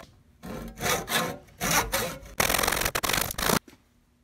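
Hand saw cutting through the wooden handle stub of a hammer head held in a bench vise. There are a few separate strokes, then a quicker, steadier run of strokes that stops about three and a half seconds in.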